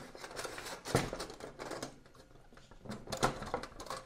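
Light metal clicks and scrapes from a gas burner and its hose being fitted into a folding metal hobo stove, with a sharp click about a second in and a few more near the end.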